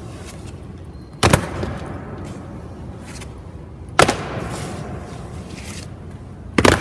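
Soldiers' boots stamping on a stone floor in a slow ceremonial march, three heavy stamps about 2.7 seconds apart, each ringing on in a long echo.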